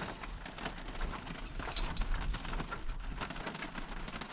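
Rain falling steadily, dense irregular drops pattering on a hard surface, with a low rumble underneath.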